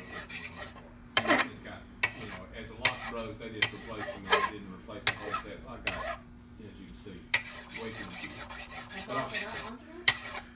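Small metal lock parts of a mortise lock clicking and clinking as they are handled on a workbench, in a dozen or so irregular sharp taps over a faint steady hum.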